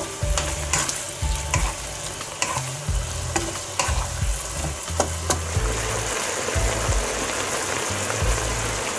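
Chicken and mushrooms sizzling and bubbling in sauce in a non-stick wok. For the first five seconds or so a spatula scrapes and taps against the pan as the food is stirred; after that only the steady sizzle remains.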